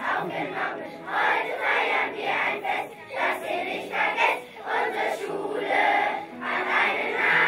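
A large group of children singing a song together in unison, in held notes with short breaks between phrases.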